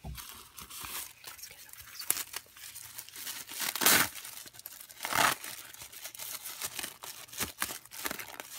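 Plastic wrapper of an individually wrapped sanitary pad crinkling as it is unfolded, with two louder tearing rips as it is peeled open about four seconds in and again a second later.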